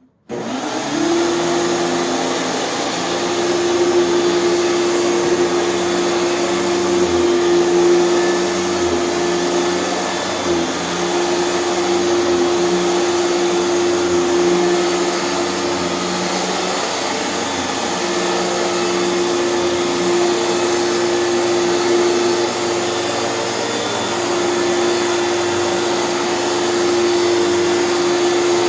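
Hoover canister vacuum cleaner with a power nozzle attached, switched on and running steadily: a loud rush of air with a steady motor tone.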